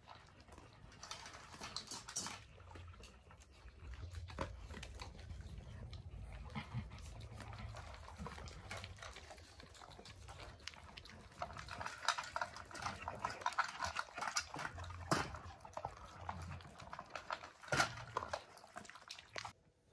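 A puppy making small noises amid light clicks and scuffles, with a run of high-pitched whines about twelve seconds in and another near the end.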